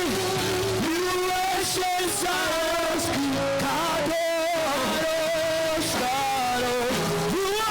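Slow live worship band music, with a guitar carrying a sustained melody whose notes glide and waver over held chords.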